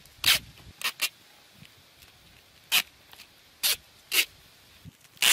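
A series of short, sharp rasping rubs, about eight separate strokes a few tenths of a second each, from hands working a green plastic strip against a cut jackfruit.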